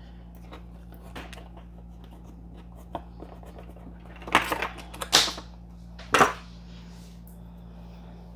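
Sharp clicks and knocks of a metal nut being pressed and worked into the nut trap of a 3D-printed plastic extruder body: one small click about three seconds in, then three loud ones between about four and six seconds in. Under them runs the steady low hum of a 3D printer.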